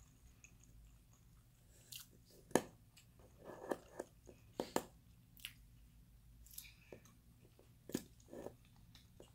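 A person chewing a mouthful of Mexican rice close to the microphone, with scattered sharp clicks, the loudest about two and a half seconds in.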